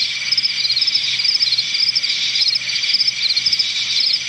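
Crickets chirping in short, evenly repeated trills, about two a second, over a steady high insect drone.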